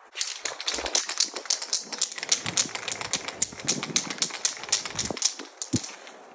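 Aerosol spray paint can being shaken hard, its mixing ball rattling in fast, sharp clicks that stop near the end.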